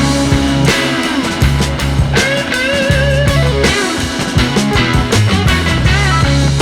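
Background music: a rock-style track with guitar over a steady bass line and a wavering melodic lead.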